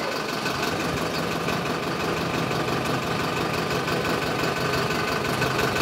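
Vehicle engine idling with a steady low hum, over the general traffic noise of a bus stand.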